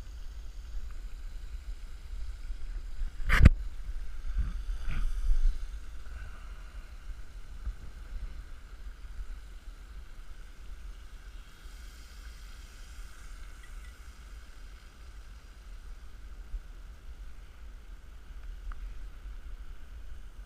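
Wind rumbling on the microphone under a steady faint hiss. A sharp knock comes about three seconds in, followed by a few softer handling noises as a plastic bag of bread dough is worked by hand.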